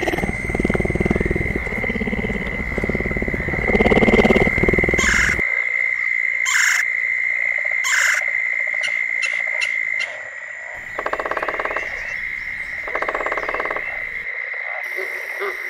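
Frog chorus with a steady high trill. Over it, low rumbling sounds fill the first five seconds and then stop. After that come red-bellied woodpecker sounds: three sharp calls a second or so apart, a few short taps, then two rapid drumming rolls of about a second each.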